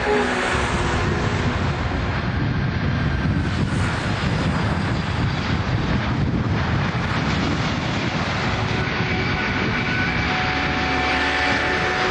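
Boeing 767 jetliner landing: steady jet-engine noise through the approach and touchdown, with faint thin whining tones in it.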